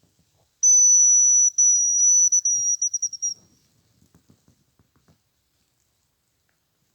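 Whistled imitation of a hazel grouse's song: a very high, thin whistle held for about two seconds with a brief break, ending in a quick stuttering trill that drops slightly in pitch.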